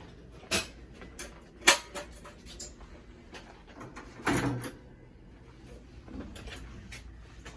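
Clicks, knocks and clatter of a kennel cage door and its latch being worked as a cat is lifted out of the cage, with one sharp click a little under two seconds in and a longer rattle in the middle.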